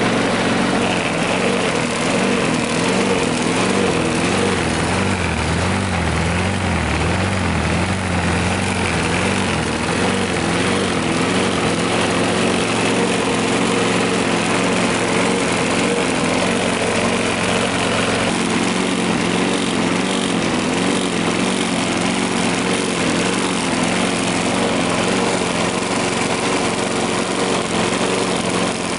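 Small single-cylinder lawn mower engine running steadily on gasoline vapor drawn into its carburetor's air intake, its speed wavering slightly up and down, most noticeably in the first ten seconds.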